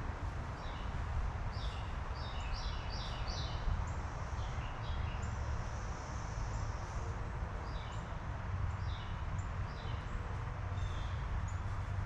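Small songbirds chirping: a quick run of short, high chirps starting about a second and a half in, then scattered chirps later on. Underneath is a steady low rumble.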